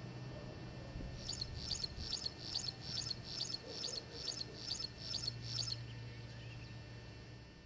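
A bird calling: a run of about ten short, high chirps at roughly two a second, over a low steady hum.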